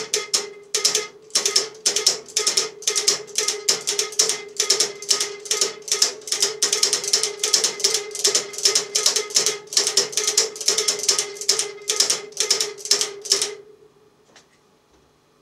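Rapid clicking of the switching relays in a home-made remote-controlled symmetrical antenna coupler as the coil control is turned and the relays step through the inductance settings, about four or five clicks a second over a steady tone. The clicking stops near the end.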